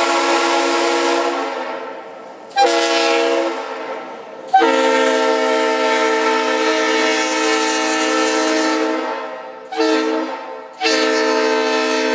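Leslie RS3L three-chime train air horn blowing a steady chord in a string of blasts. A held blast cuts off about a second in, a short one follows near 3 s, then a long one of about four seconds, another short one, and a last long one that is still going at the end.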